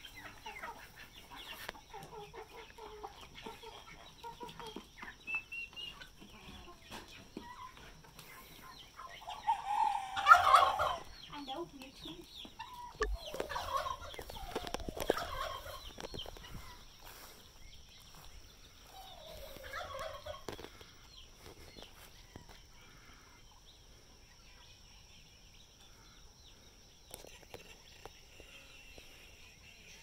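Domestic poultry calling at intervals, mostly chicken clucking. The loudest calls come about ten and fifteen seconds in, with another around twenty seconds, and the last third is quieter.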